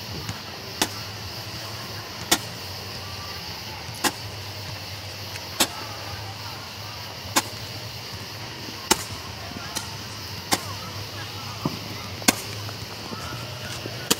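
Firework pops going off one at a time at a steady pace, about one every second and a half to two seconds, each a sharp crack. A steady low hum runs underneath.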